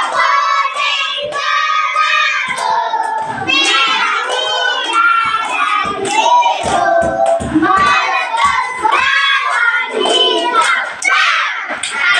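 A class of young children singing together while clapping their hands.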